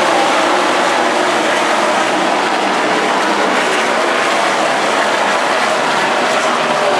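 A field of NASCAR Sprint Cup stock cars, their V8 engines at high revs, streaming past one after another. Many engine notes overlap into one loud, steady sound with no break.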